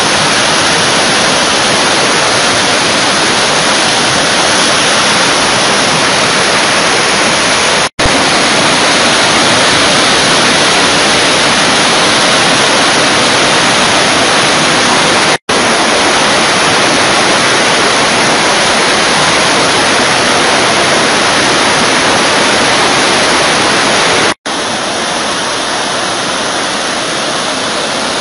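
Muddy flash-flood water rushing through a channel: a loud, steady wash of noise that cuts out for an instant three times.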